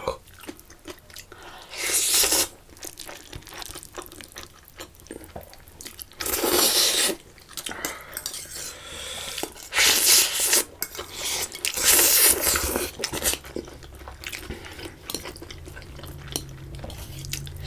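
Metal forks and spoons clinking and scraping against small metal bowls as black bean noodles are scooped up and eaten, broken four times by loud noodle slurps about half a second to a second long.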